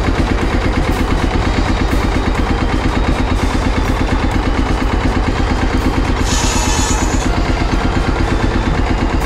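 Vintage tractor engine running steadily with an even, rapid beat, driving a saw bench by a flat belt. A brief higher hiss about six seconds in as the circular saw cuts wood.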